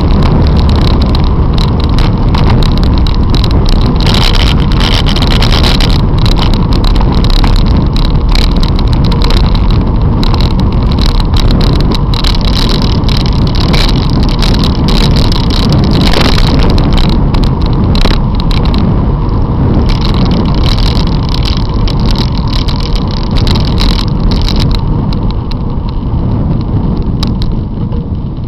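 Wind rushing over a bicycle-mounted camera's microphone while riding along a road, loud and steady, with frequent sharp clicks. It eases off over the last few seconds as the bike slows behind a car.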